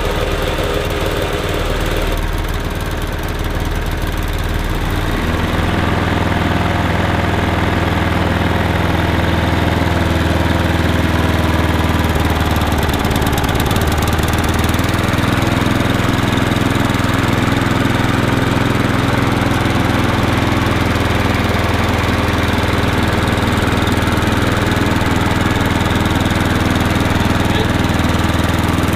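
Hayter rotary lawnmower's small petrol engine running steadily after a pull start. It runs a little slow because only one of its governor springs is fitted.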